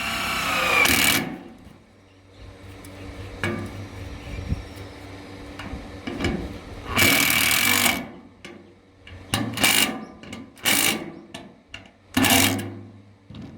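Power drill running in several short bursts, the longest about a second, as it drives a fastener through a metal connector into a metal beam. Light knocks come between the bursts.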